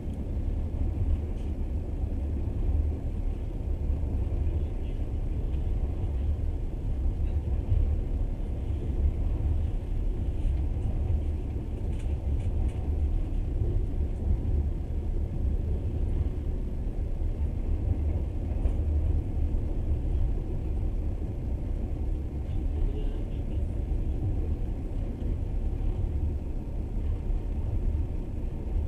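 Steady low rumble of a moving passenger train running along the track, heard from inside the carriage.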